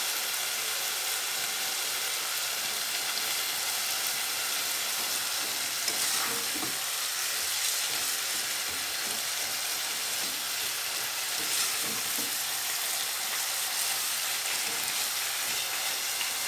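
Julienned radish frying in a saucepan, sizzling steadily, with a spatula stirring and scraping through it now and then.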